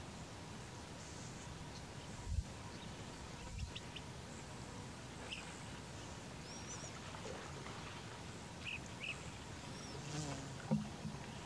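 Outdoor ambience: a steady low rumble with a few faint, short bird chirps, and dull low thumps about two seconds in, a second later, and again near the end.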